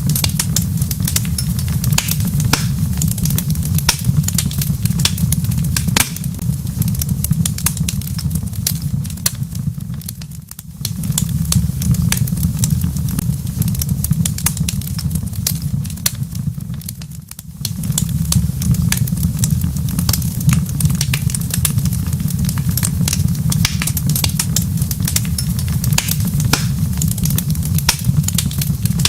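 Wood fire crackling in a fireplace, dense sharp pops and snaps over a steady low rumble. The rumble drops away briefly twice, about ten and seventeen seconds in.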